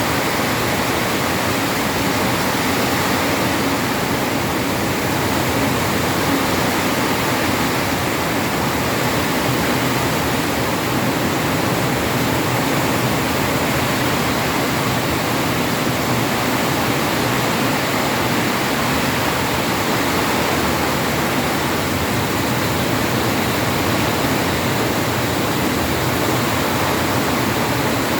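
Heavy tropical rain falling in a steady downpour, a dense even hiss.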